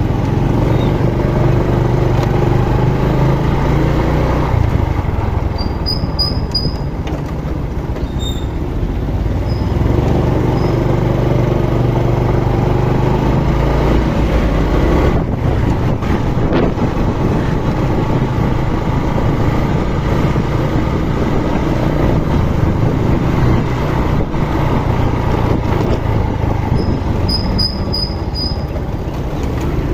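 Small motorcycle engine running while riding along, its hum rising and falling with speed, over a steady low rumble of wind and road noise. Short high chirps come twice, about six seconds in and near the end.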